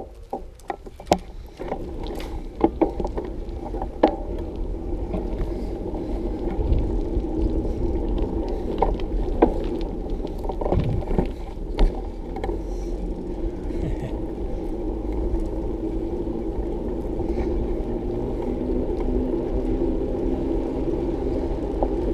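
Bicycle riding noise: a steady rumble of tyres and wind on the microphone, with scattered knocks and rattles. It gets louder after about two seconds.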